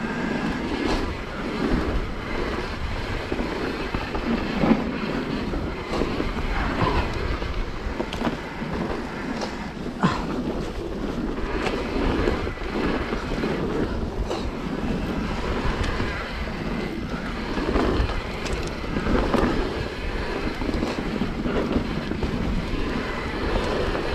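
Mountain bike riding down a dirt trail: steady wind rush on the action camera's microphone and tyre rumble, with scattered knocks and rattles from the bike over the rough ground.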